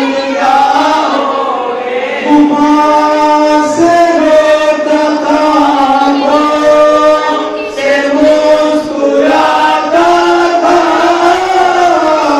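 Men and boys chanting a noha, a Muharram mourning chant, together without instruments. One lead voice is amplified through a microphone. The singing moves in phrases of a few seconds with long held notes, and there are brief breaks near 2, 4, 8 and 9 seconds in.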